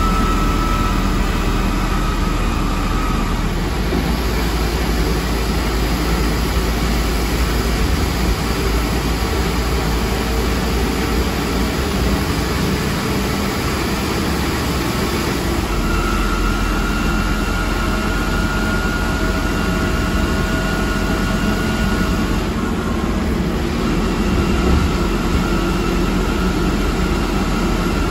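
ZF Ecomat IV 6HP504C automatic gearbox of a Scania K230UB bus whining up through an open floor hatch, over the deep drone of the Scania DC09 9.3-litre engine under way. The high whine fades a few seconds in, comes back about halfway through, and drops out briefly near the end.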